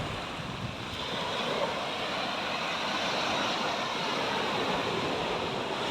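Sea waves washing onto a beach: a steady rushing surf noise.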